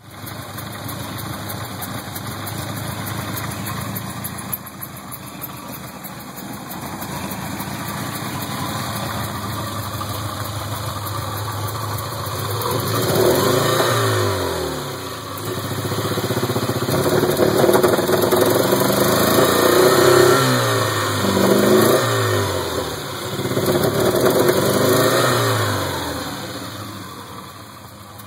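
1977 Porsche 924's 2.0-litre four-cylinder engine with Bosch CIS (K-Jetronic) fuel injection running at a rough idle, then revved up and let fall back several times in the second half.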